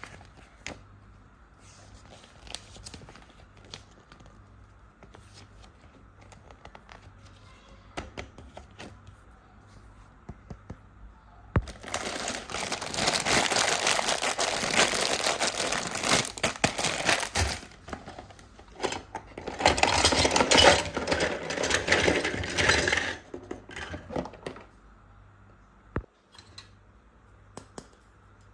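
Plastic packaging being crinkled and torn open in two long, loud spells, with scattered small clicks and taps of toy parts before and after.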